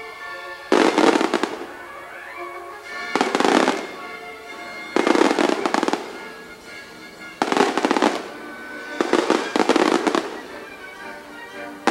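Fireworks going off in about five loud bursts, each lasting about a second, every couple of seconds, with the show's music playing underneath.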